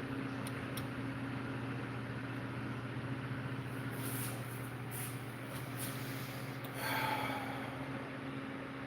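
A steady low electrical hum, with a few light clicks and rustles about four to six seconds in and a short, louder scrape or squeak about seven seconds in.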